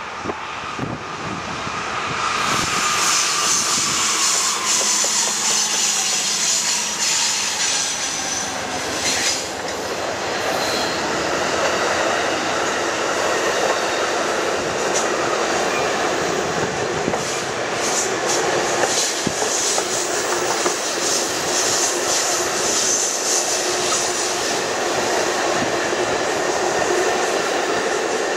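Amtrak passenger train passing close by. The P42DC diesel locomotives come first, with a tone that drops in pitch as they go by. Then a long string of Superliner cars rolls past with steady wheel-on-rail noise and scattered clacks.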